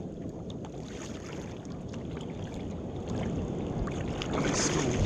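Water splashing and lapping around a kayak, with wind on the microphone; it grows louder toward the end.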